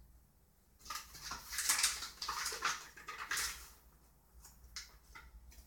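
A flour bag rustling as it is handled, for about three seconds, followed by four light clicks or taps.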